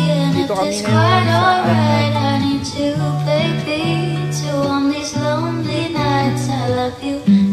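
Background music: a song with a singing voice over held bass notes that change every half second to a second.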